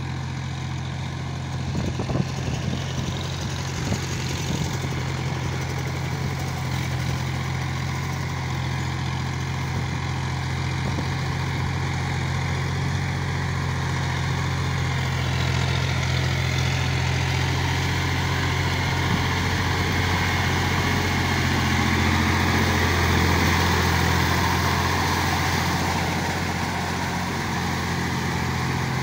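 John Deere 5045D tractor's three-cylinder diesel engine running steadily under load, pulling a rotavator through a flooded paddy field. It grows gradually louder as the tractor comes closer.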